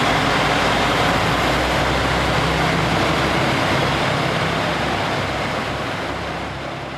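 Cabin noise of a JR Shikoku 2000 series diesel tilting train running at speed: a steady low diesel engine drone under loud rumble and rushing noise. The sound gradually fades toward the end.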